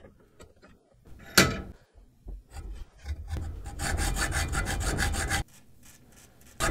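Hacksaw cutting through a steel oversize oil-drain-plug bolt clamped in a bench vise, shortening its threaded end, in a quick run of strokes that stops about a second before the end. A single sharp metal clank comes about a second and a half in, before the sawing starts.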